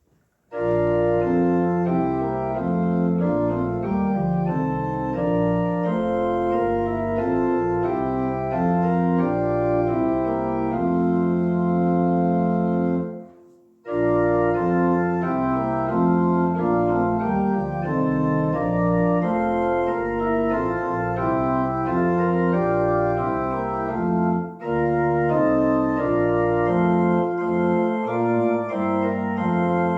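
Organ playing sustained chords that change every second or so. The music fades out briefly a little before halfway and starts again, with a short break about three quarters of the way through.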